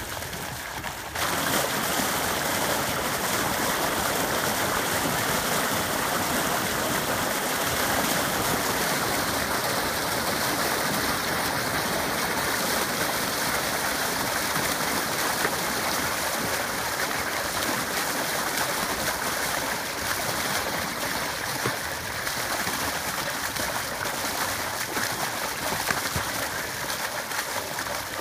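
Water gushing from a corrugated plastic hose and splashing onto a lake's surface, carrying fish being released into the lake. A steady rushing noise that gets louder about a second in.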